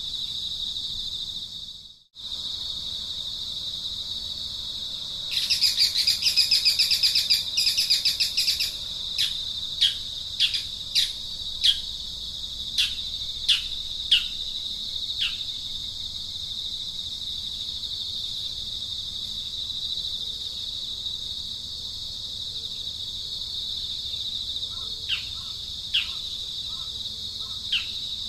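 Steady high-pitched drone of insects, with a bird breaking in about five seconds in: a few seconds of rapid chattering, then a string of sharp, falling chirps, and a few more near the end. The sound cuts out briefly about two seconds in.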